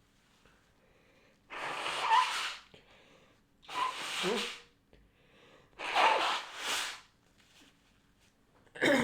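A woman blowing her nose hard, three long noisy blows about two seconds apart, with a fourth starting near the end.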